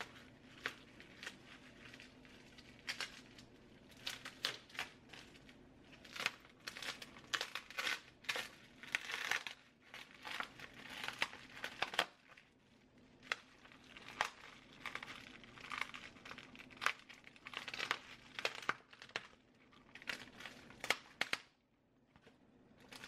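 A thin, flexible fiberglass shell and its plastic sheeting crinkling and crackling as they are peeled up by hand off a foam mold, in irregular crackles.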